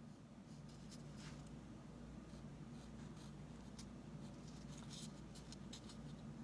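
Faint light scratching and tapping of a small paintbrush working acrylic paint onto the smooth surface of a painted gourd, in scattered short strokes over a low steady hum.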